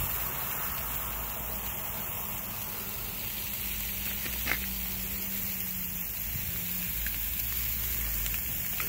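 Meat sizzling on a Char-Broil gas grill, a steady hiss with a low rumble underneath, and a single click about four and a half seconds in.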